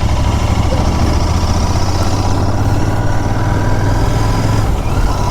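Royal Enfield Continental GT 650's 648 cc parallel-twin engine and exhaust running steadily while riding, a deep even note. The note changes slightly near the end.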